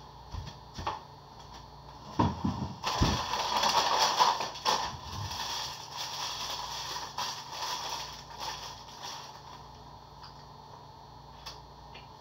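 A few dull thumps about two seconds in, then a McDonald's sausage muffin's paper wrapper crinkling loudly as it is unwrapped, dying down over the next few seconds.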